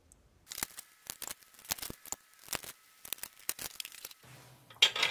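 Irregular short clicks, taps and rustling scrapes of metal parts and tools being handled on a steel workbench. A low steady hum comes in near the end.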